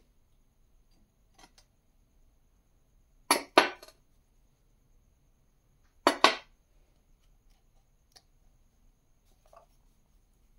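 Glass tumbler being set down on a marble tabletop: two sharp double clinks, the first about three seconds in and the second about three seconds later, with a few faint taps between.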